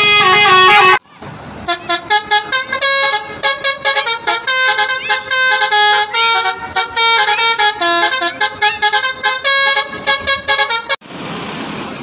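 Basuri telolet bus horn playing a fast tune of short stepped multi-tone notes. The tune breaks off suddenly about a second before the end, leaving a steady outdoor hiss.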